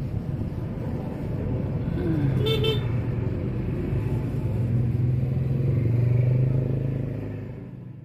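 Road traffic: a motor vehicle engine running steadily, with a short horn toot about two and a half seconds in.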